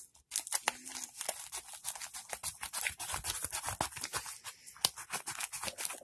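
Small scissors of a Ganzo G301B multi-tool snipping through a plastic mailer bag: a quick run of short, sharp snips, several a second.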